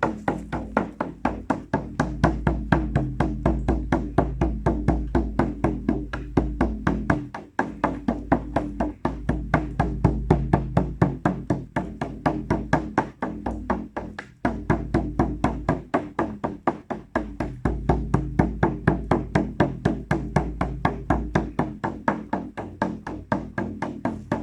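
Rhythmic drum music: a fast, steady beat of about four strikes a second over a low sustained drone, with two brief breaks in the beat.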